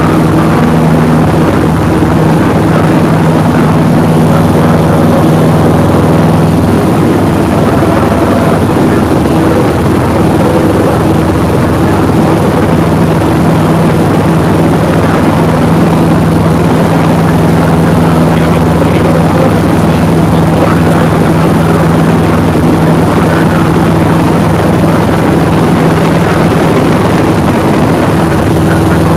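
Light single-engine propeller plane's engine at full takeoff power, heard inside the cabin: a loud, steady drone through the takeoff roll and climb-out.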